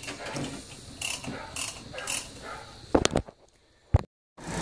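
Irregular clicking and scraping of handled metal parts, with two loud knocks about three seconds in, then a sudden drop to silence. A vacuum pump's motor starts running steadily just at the end.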